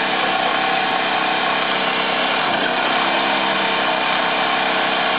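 A motor running steadily, a constant hum with many overtones.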